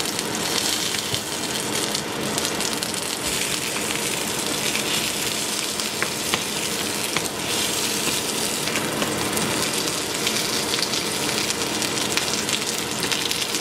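A hamburger patty frying in its own fat and juices in a frying pan: a steady sizzle with scattered pops of spitting grease.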